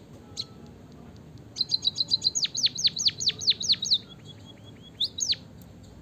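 Munia (emprit) singing: a fast run of high chirps turns into a string of high notes that each sweep steeply downward, followed by a few softer short notes and two loud closing chirps near the end.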